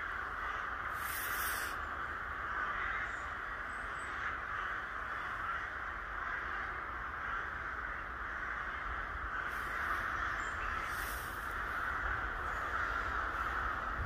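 Many crows cawing at once at a treetop nesting colony, a dense chorus of overlapping calls with no break.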